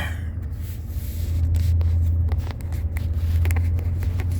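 Low, steady drone of a car heard from inside the cabin while driving, with scattered light clicks and rattles from about a second and a half in.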